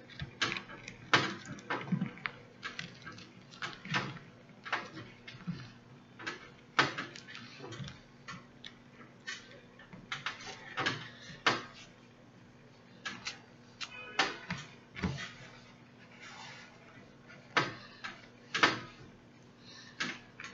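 Irregular clicks, taps and rustles of hands sewing a hair weft onto a mesh wig cap close to the microphone: needle and thread pulled through, and fingers brushing the hair and cap. Sharp clicks come one or two a second at uneven spacing.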